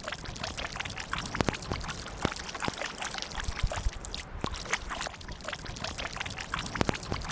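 Kayak paddle strokes on flat water: water dripping and trickling off the paddle blades, with many small, irregular splashes.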